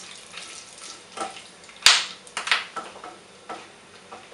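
Whole spices (bay leaves, cumin, cloves, cardamom) sizzling in hot oil in a kadai, tempering at the start of a pulao, while a silicone spatula stirs and scrapes them around the pan. A sharp knock against the pan comes a little under two seconds in.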